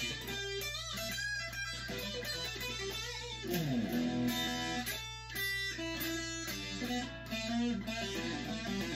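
Les Paul-style electric guitar played solo: a quick run of picked single notes and licks, with a note sliding down in pitch about three and a half seconds in.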